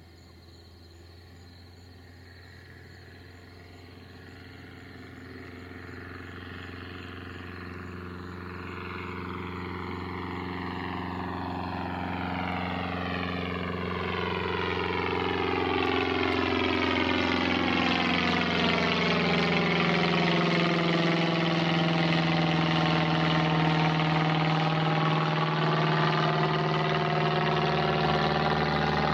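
Cessna 162 Skycatcher's four-cylinder Continental O-200 engine and propeller droning as the light plane flies in low and passes overhead. The sound grows steadily louder over the first fifteen seconds or so, then holds loud, with a swirling, sweeping quality. Its pitch drops slightly about sixteen seconds in as the plane goes over.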